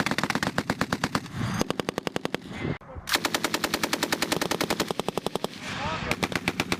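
Machine guns firing in rapid bursts of about ten rounds a second: one burst continuing into the start, a short break just under three seconds in, a long burst of over two seconds, then looser overlapping shots near the end.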